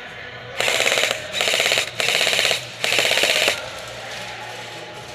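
Airsoft electric rifle firing four short full-auto bursts in quick succession, each a rapid, fast-rattling string of shots lasting about half a second.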